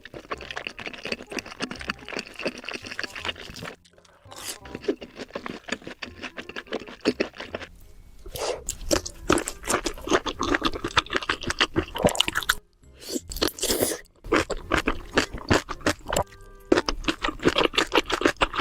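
Close-miked eating of sausages: dense crunchy crackles of biting and chewing, broken by a few brief pauses.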